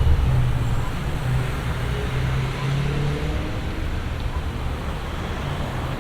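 Road traffic noise: a steady roar of passing vehicles with a low engine hum that dies away about three seconds in.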